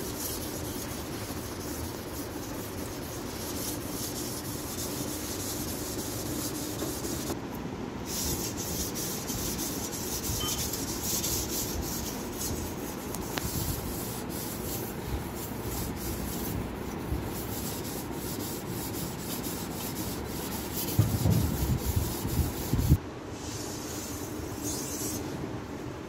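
Steel blade of a 20-inch Master Kuo GL-500 tuna knife being rubbed by hand over a Chosera 2000-grit waterstone, a steady scraping. A short run of louder low bumps comes about three-quarters of the way through.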